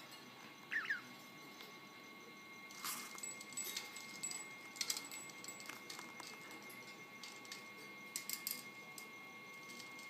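Pet budgie playing in its wire cage: scattered clicks and light rattles of the hanging toys and cage, with a quick double chirp about a second in.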